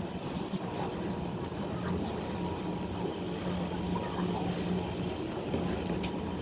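Steady low rumble of vehicles with a constant low hum underneath.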